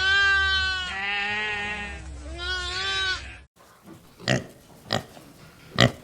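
Sheep bleating: three long, wavering bleats. After an abrupt cut, a pig gives three short grunts about half a second to a second apart.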